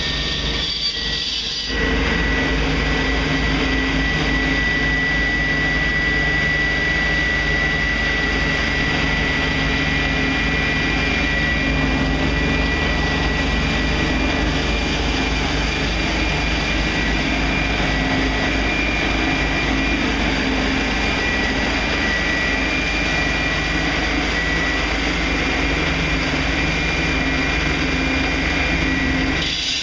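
Heavy concrete-cutting or demolition machinery running steadily, with a constant high whine over the engine noise. The sound changes abruptly about two seconds in, then holds steady.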